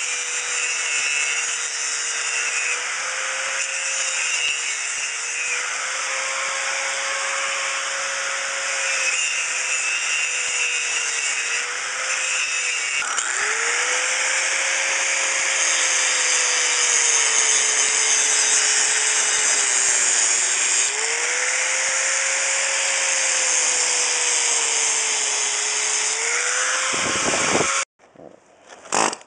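Pneumatic air hammer running at 90 psi, chipping out old pool plaster, with a steady noise and a whine that wavers in pitch. It cuts off suddenly near the end, followed by a couple of short bursts.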